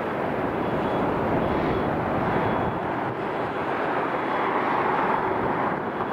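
Jet airliner engine noise, a steady rush that swells slightly about five seconds in as an aircraft passes.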